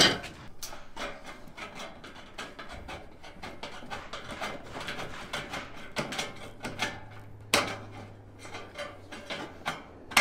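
Aviation snips cutting sheet-metal roofing trim: a quick, irregular run of snipping clicks with a few sharper snaps.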